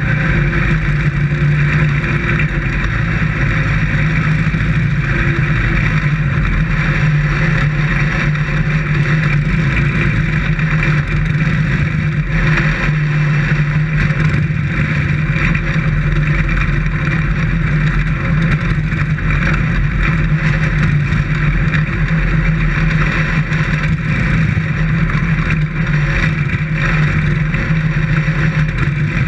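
Dirt-track race car engine running at speed, heard loud from a camera mounted inside the car. The drone holds a fairly steady pitch with only small changes throughout, with no sharp revving.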